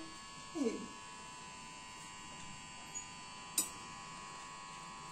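Steady electrical buzz in a small room. About half a second in there is a short falling vocal sound, and later two light clicks of a steel spoon against a steel bowl.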